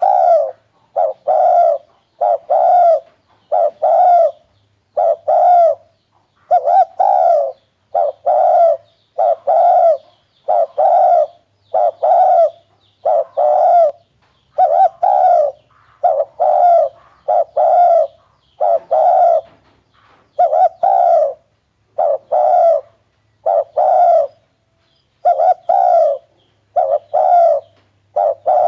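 Spotted dove cooing over and over, loud and close: short, low, hollow coos following one another about once a second without a pause.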